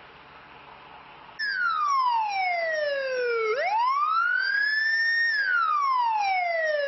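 Electronic police siren in a slow wail: about a second and a half in it starts high and glides down, sweeps back up, holds briefly at the top, then glides down again. Faint street noise comes before it.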